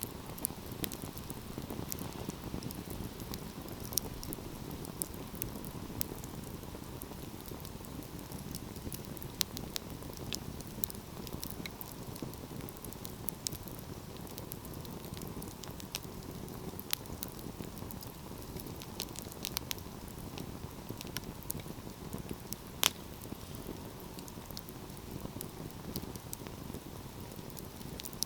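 Wood fire burning with a steady low rush and frequent sharp crackles and pops; one pop late on is the loudest.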